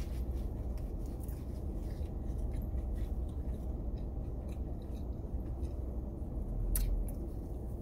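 A person chewing and biting into a crispy fried chicken sandwich, with crackly crunches all through and a loud crunchy bite near the end. A low steady hum runs underneath.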